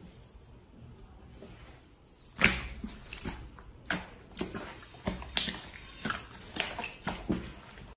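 Hands pressing, folding and squeezing a large sheet of clear jelly slime, making wet squelches and pops. It is quiet for the first couple of seconds, then a loud smack comes about two and a half seconds in, followed by a string of short, sharp squelching pops.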